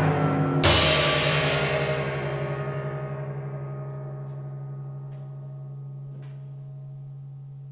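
Percussion solo on timpani: a loud stroke about half a second in, then the instruments ring on with a steady low hum and shimmering metallic overtones that slowly die away, with a few faint taps near the end.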